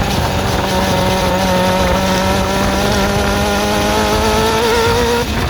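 Suzuki GSX-R400 inline-four engine running with the revs held up and slowly creeping higher, then dropping back about five seconds in. The owner hears a horrible ticking from the motor and suspects the valve shims or the timing chain.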